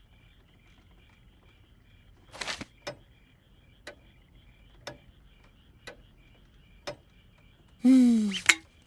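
A clock ticking about once a second in a quiet night-time room, over faint steady chirping. There is a short rustle about two and a half seconds in, and a voice lets out a falling, sigh-like sound near the end.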